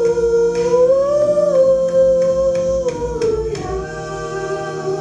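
Girls singing into handheld microphones, holding long notes. One phrase ends about three seconds in and a new one begins.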